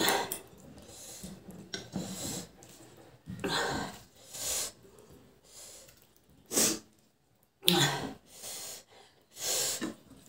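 A string of sharp, noisy breaths through the mouth and nose, about seven short bursts with pauses between them: a person reacting to a mouth burning from very spicy mutton curry.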